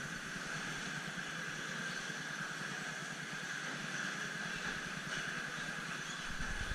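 Several 1/10 scale electric 2WD touring cars racing on an indoor carpet track, giving a steady high whine and hiss. A low rumble comes in near the end.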